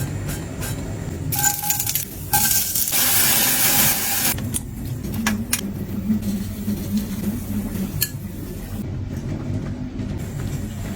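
Home kitchen cooking sounds: a steady low hum under scattered clinks of utensils and dishes, with a burst of hissing lasting about a second and a half, a few seconds in.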